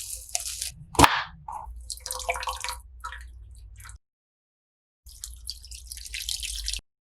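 Wet dripping and splashing sounds of liquid, with one sharp clack about a second in, broken by about a second of dead silence at an edit and cut off abruptly near the end.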